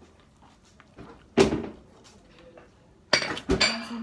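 Metal cutlery clinking against a plate: one sharp clink about a second and a half in, then a short clatter of several knocks near the end.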